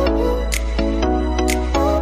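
Background music with a steady beat: sustained bass, chords and a short melody, with a crisp high percussion hit about once a second.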